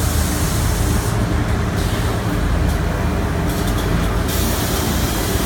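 Linear CNC profile machine running: a steady low machine hum under a high hiss that cuts in and out several times.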